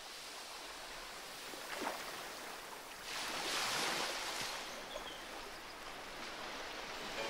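Ocean surf: a soft, steady wash of waves, with one wave swelling louder and washing in about three seconds in.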